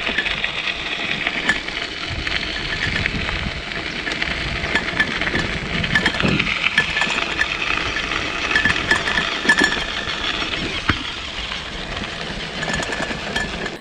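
Bicycle rolling along a gravel road: a steady crunching hiss of tyres on loose gravel, with wind rushing over the microphone and scattered small clicks and rattles.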